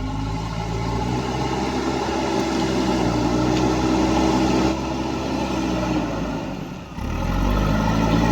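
Heavy diesel engine running under load: the revs rise at the start, hold steady, drop briefly, then climb again about seven seconds in.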